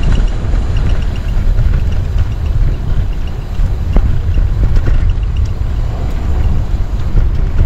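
Wind buffeting the microphone with road rumble from a bicycle on the move, loud and steady.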